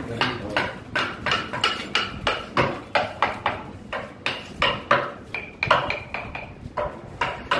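Steady hammering, about three blows a second, each with a short metallic ring, as of a hammer striking a metal tool.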